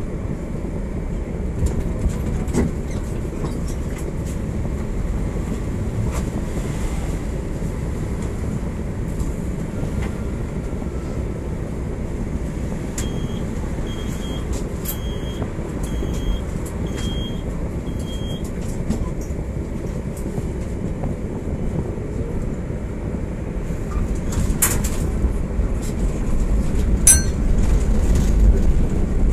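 Coupled PCC trams standing at a signal with a steady low rumble, then pulling away, the sound growing louder over the last few seconds. In the middle, a run of six short, evenly spaced high beeps sounds.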